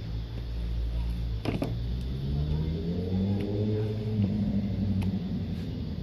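A motor vehicle's engine accelerating over a low rumble, its pitch rising for a couple of seconds and then levelling off. A quick pair of sharp taps comes about a second and a half in.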